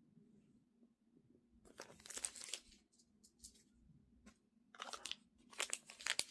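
Plastic wrapping crinkling and tearing in short bursts as a small packaged miniature is unwrapped by hand, twice: about two seconds in and again near the end.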